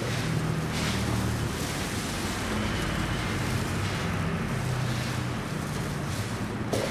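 Steady hiss with a faint low hum: background noise of the room or the recording, with no distinct event standing out.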